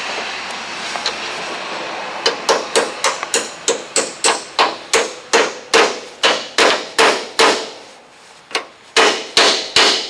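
Hammer tapping a new steel hinge pin and bushing into a truck's top door hinge: a run of quick metal-on-metal strikes about three a second that starts a couple of seconds in, a short pause, then a few heavier blows near the end that seat the pin.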